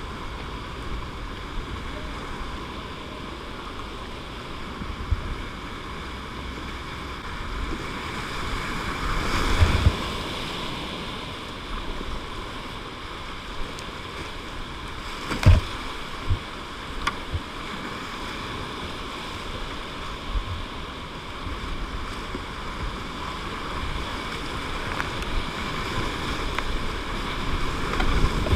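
Whitewater rapids rushing around a kayak, heard close up from a boat-mounted camera, with paddle strokes and water splashing. A sharp knock comes about halfway through, and a burst of spray hits near the end.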